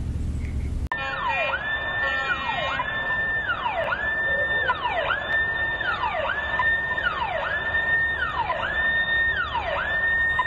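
Electronic emergency siren wailing, rising quickly, holding high and falling again in a steady cycle a little over once a second, starting about a second in.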